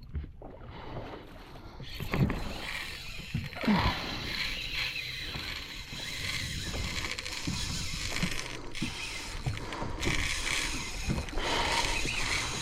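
A boat on the water: a steady rush of water and hull noise that swells about two seconds in, with a few light knocks.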